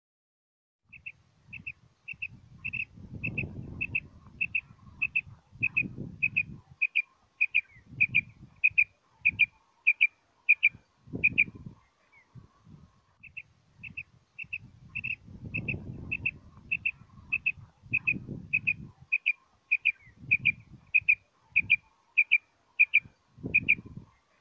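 Common quail calling: a steady run of short, sharp, high notes, about two a second, with a pause of about two seconds midway, over bursts of low rumbling noise.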